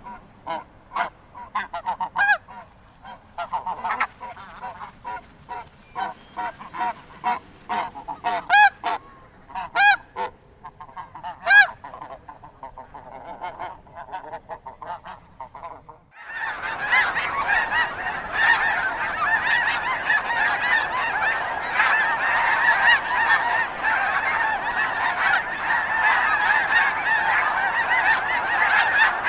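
Snow geese honking: for about half the time, separate calls a second or so apart, then a large flock calling all at once in a dense, unbroken chorus of overlapping honks.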